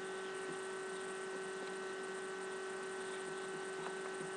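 Steady electrical hum with an even hiss underneath, a constant tone that does not change.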